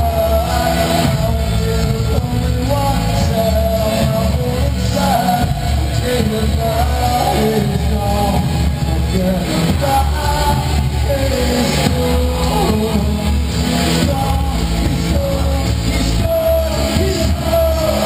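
Live rock band playing loudly, with drums, electric guitars and bass under a sung vocal melody.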